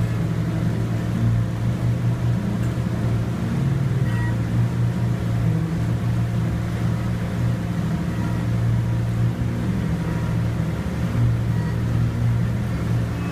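Boat's engine running steadily underway, a constant low hum.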